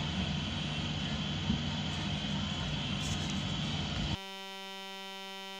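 Steady background hiss and low rumble with no music. About four seconds in it cuts off abruptly and gives way to a steady buzzing tone with many overtones.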